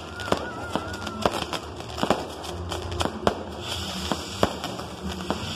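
Fireworks going off: an irregular string of sharp bangs and pops over steady crackling, with a thin wavering whistle in the first second or so.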